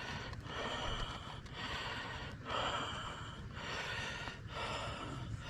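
A man breathing heavily, a run of quick in-and-out breaths about once a second, just after cutting himself.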